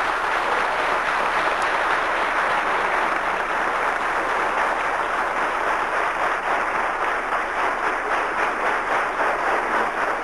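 A crowd applauding, a steady dense clapping that goes on without a break.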